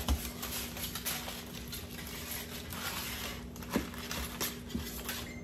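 Light handling noises: a few soft clicks and knocks, one a little louder near the end, over a steady low hum.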